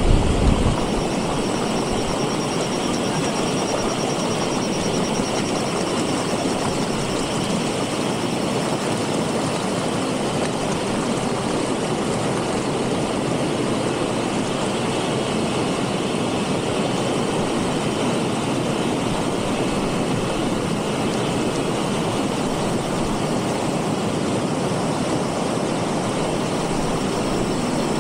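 Shallow rocky stream rushing over stones, a steady loud wash of water, with a brief low bump at the very start.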